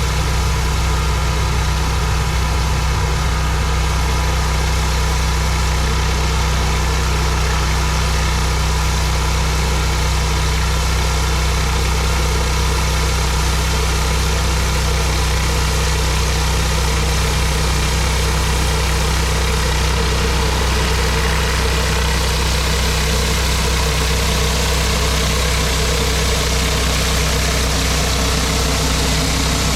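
Engine-driven pressure washer running steadily at a constant speed.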